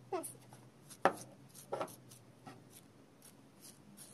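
A plastic utensil scraping and tapping against a clear plastic phone case in a glass dish as baking soda is spread over it. There are a few short scrapes, the loudest about a second in, then lighter scratchy strokes.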